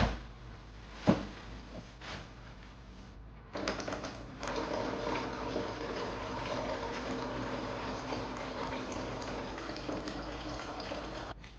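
A single sharp knock, then water running steadily for about eight seconds, starting about three and a half seconds in and stopping just before the end.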